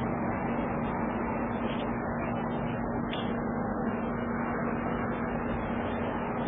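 Steady hiss with a low hum underneath, unchanging throughout; no meowing.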